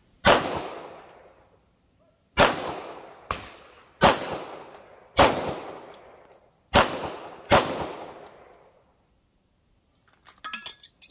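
A 9mm pistol fired seven times at an uneven pace. Each shot is a sharp crack followed by an echo that dies away over about a second. A few small clicks follow near the end.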